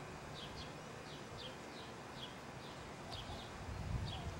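A bird chirping faintly, with short falling chirps repeated two or three times a second over faint outdoor background noise.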